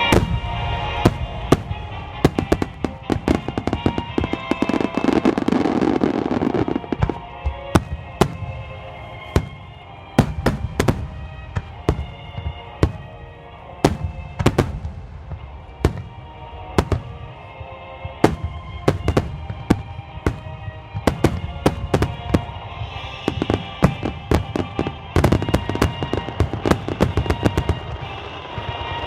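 Fireworks display: many aerial shells bursting with sharp bangs, one after another and at times in rapid clusters, while music plays alongside.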